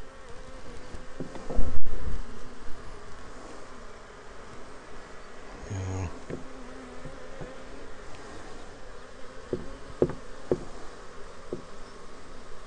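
Honey bees buzzing around an open hive, a steady hum with a bee passing close to the microphone about six seconds in. A brief low thump comes about two seconds in, and a few light knocks near the end.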